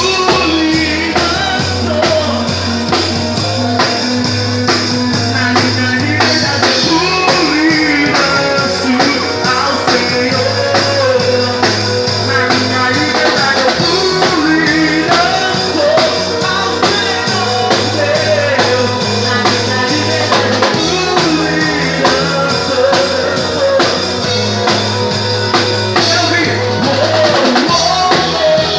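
Band music: a drum kit keeping a steady beat under a stepping bass line and a melodic lead line.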